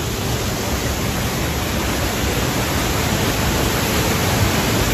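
A waterfall's steady, loud rush of falling water, an even noise that grows a little louder toward the end.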